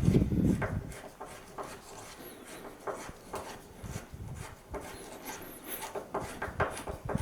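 Hands handling small alarm hardware: rubbing and scraping with scattered light clicks, and a heavier thump right at the start.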